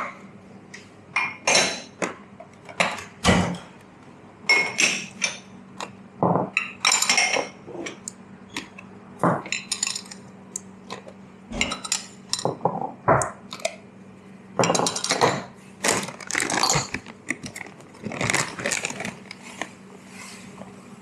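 Cups, saucers and spoons clinking and clattering in irregular bursts behind a coffee-shop counter, over a steady low hum.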